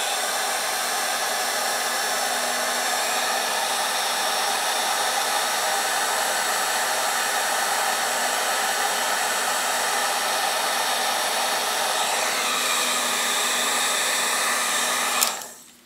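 Heat gun blowing steadily on its hot setting, shrinking heat-shrink tubing over crimped thermistor-wire joints. Near the end it is switched off with a click and the blower winds down.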